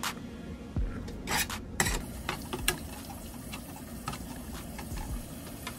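Cooking utensils tapping and scraping against metal pans during stirring: about a dozen irregular clicks and knocks, a few louder ones in the first two seconds.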